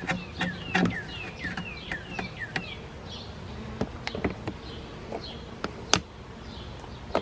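Honeybees buzzing at the opened hive, with scattered sharp clicks and knocks as the hive parts and patty are handled, the loudest a little before the end. A bird calls a run of quick falling notes, about three a second, during the first three seconds.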